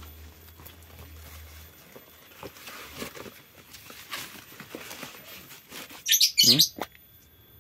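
Bubble wrap and tissue paper rustling and crinkling as a lens is unwrapped by hand. About six seconds in comes a brief, loud chirp-like call.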